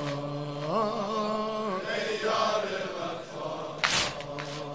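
A male reciter's voice holding a long drawn-out note of a Shia mourning lament, the pitch sliding up about a second in and then held again. One sharp slap sounds near the end.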